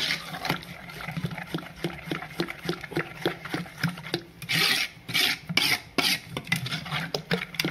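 Metal spoon beating a wet yogurt-and-flour batter in an aluminium bowl, scraping and clinking against the sides in quick repeated strokes, louder and harsher for a stretch about two-thirds of the way through.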